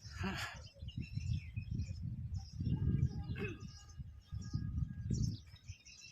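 Small birds chirping repeatedly in short high calls, with a low irregular rumble underneath that is loudest about three seconds in.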